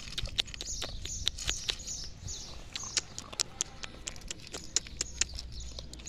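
Puppy crunching dry kibble from a bowl: a quick, irregular run of crisp crackles and clicks, with birds chirping in the background.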